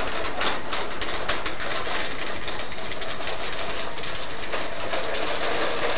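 A small plastic wheeled push toy rattling and clicking rapidly and unevenly as it is pushed across grass.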